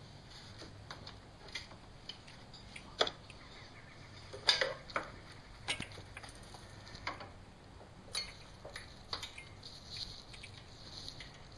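Hand tools and metal parts clinking and knocking in a car's engine bay while parts are taken off to reach the drive belt. The clicks come at irregular intervals, with the sharpest knocks about 3 and 4.5 seconds in.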